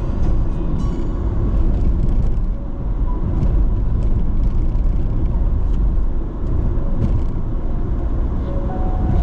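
Car driving on a city road: a steady low rumble of engine and tyre noise.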